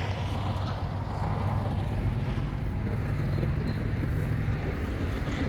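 Steady low rumble of a running vehicle, even throughout with no distinct events.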